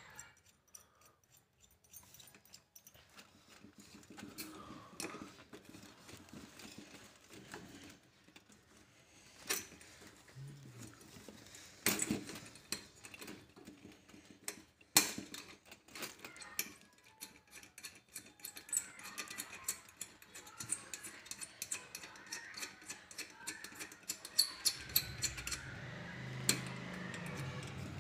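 Light metallic clicks and clinks of a small chandelier chain and its joining link being handled and fitted onto the metal frame, with a few sharper taps spaced out and a denser run of small clicks in the second half.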